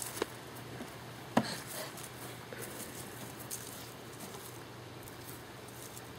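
Cardboard shoeboxes being picked up and handled, with two light knocks near the start and about a second later, over faint rustling and a steady low hum.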